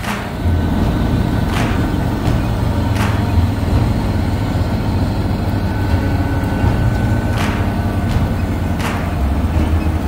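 New Holland 8770A tractor engine running steadily under load as it pulls a row-crop planter across tilled ground.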